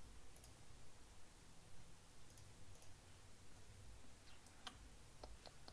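Scattered faint clicks of a computer mouse over near-silent room tone, several close together near the end.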